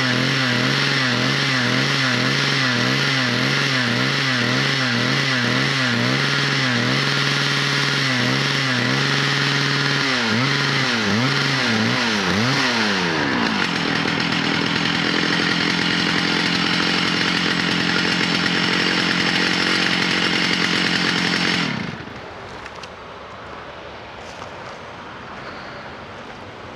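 111 cc chainsaw power head driving a log winch at high speed under load, its pitch wavering up and down about twice a second. Partway through, the engine note swings wider and then settles lower and steadier. Near the end the engine sound cuts off abruptly, leaving quiet outdoor background.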